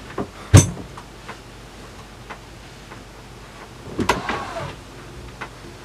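Someone rummaging through drawers and cupboards: a sharp clack about half a second in, a few light knocks, then a short scraping slide about four seconds in.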